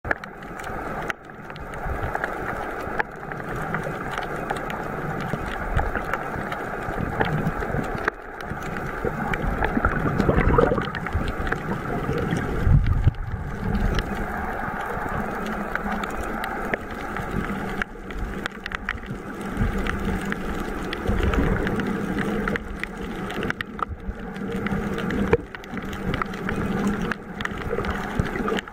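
Muffled underwater water noise picked up by a camera in a waterproof housing as snorkelers swim by: a steady churning wash with irregular knocks and surges, and a low steady hum through the second half.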